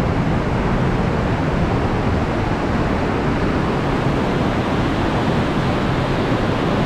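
Mountain torrent rushing through a narrow rock gorge: a loud, steady roar of white water.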